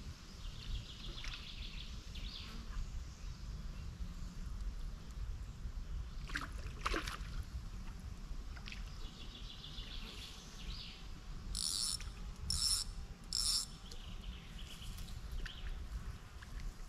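Riverbank ambience: a steady low rumble with birds chirping on and off. There is a falling whistle-like call about seven seconds in, and three short, sharp, high-pitched sounds about a second apart just past the middle.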